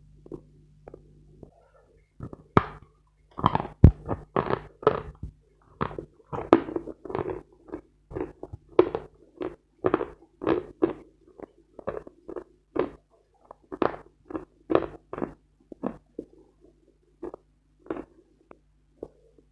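Close-miked chewing of dense dry chalk, crisp crunches following one another about twice a second with short pauses, the chalk crumbling down between the teeth.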